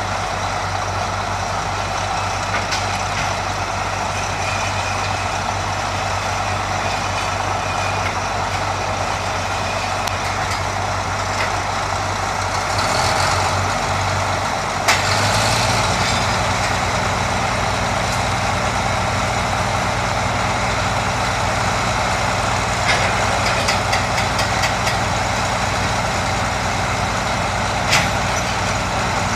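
Diesel engines of several Caterpillar 583 sideboom crawlers running under load as they lift an overturned locomotive. About halfway through one engine picks up speed and the note rises, with a sharp clank just after and another near the end.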